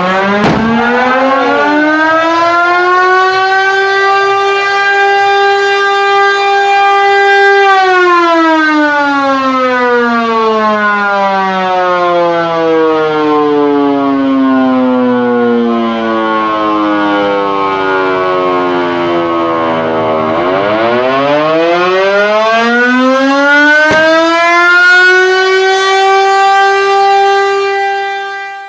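A siren wails, winding up over about three seconds to a steady high note and holding it. At about eight seconds in it begins winding slowly down over some twelve seconds to a low growl, then winds back up and holds the high note again near the end.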